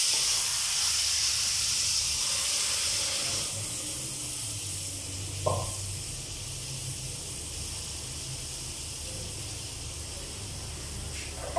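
Hot sugar syrup sizzling as it hits semolina roasted in desi ghee: a loud, even hiss that fades gradually, dropping back noticeably about three and a half seconds in. A single light tap sounds just past halfway.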